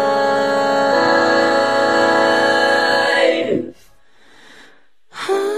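Soundtrack song: a long sung note (the word "life") held over instruments, which slides down and breaks off a little past halfway. After a short quiet gap the music starts again near the end.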